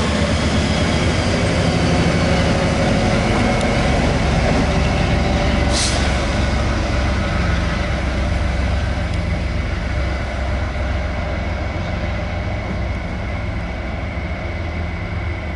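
MBTA HSP46 diesel locomotive running with a steady heavy low rumble as the commuter train moves past, easing off slowly toward the end. A brief hiss comes about six seconds in.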